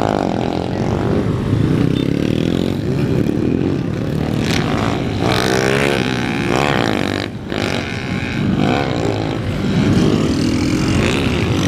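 Several small street motorcycles revving, engine pitch rising and falling again and again as they ride past, the revving of riders pulling wheelies.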